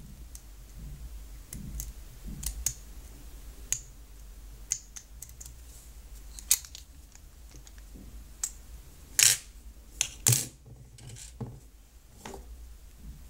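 Scattered light metallic clicks and scratches of a hook pick and tension wrench single-pin picking an American Lock clone, with a few louder clicks about nine and ten seconds in.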